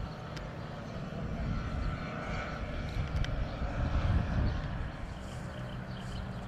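Engines of two Kolb ultralight aircraft droning as they fly past together, the sound swelling about four seconds in and then easing.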